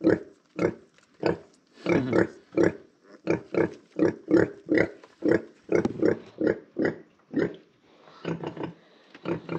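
Black sow grunting rhythmically while her newborn piglets suckle, short low grunts about two to three a second that grow softer near the end. This steady grunting of a nursing sow goes with milk let-down.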